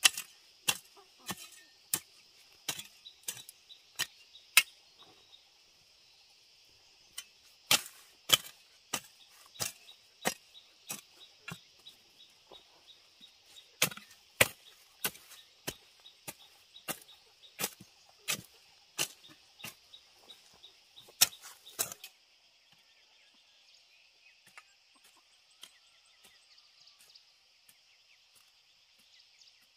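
Rhythmic chopping strikes of a blade into wood, about three every two seconds: a short run of strikes, a pause of a few seconds, then a long steady run that stops abruptly about two-thirds of the way through.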